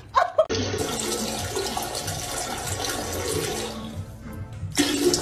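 Toilet flushing: a steady rush of water that starts suddenly about half a second in.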